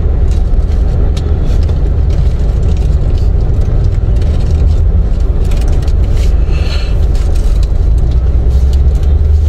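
Steady low rumble of a car heard from inside the cabin, in slow traffic: engine and road noise.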